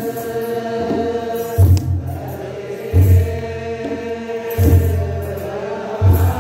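Ethiopian Orthodox mahlet: a group of chanters singing a slow, drawn-out liturgical chant in unison, with a deep drum beat about every one and a half seconds.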